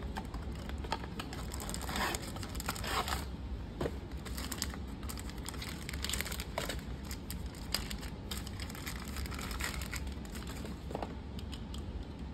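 Tissue paper crinkling and a thin cardboard box being handled as it is opened and unwrapped, in irregular rustling bursts.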